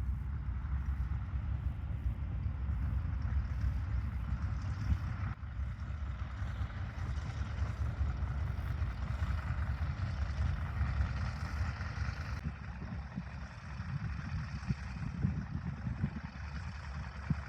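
Boeing Stearman 75's radial engine running: a steady low rumble that holds level throughout, without the rising roar of a takeoff run.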